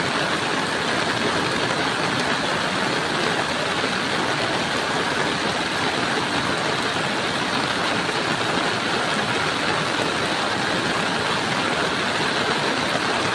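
Muddy flash-flood water rushing in a loud, steady torrent, a continuous even roar of water with no breaks.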